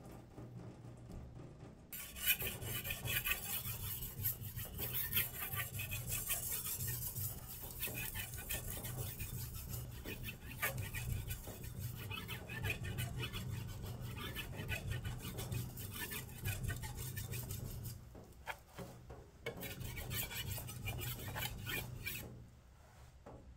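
Damascus kitchen knife blade being stroked back and forth on a wet whetstone, a rhythmic wet scraping of steel on stone. The strokes start about two seconds in, pause briefly near the end, resume for a few seconds, then stop.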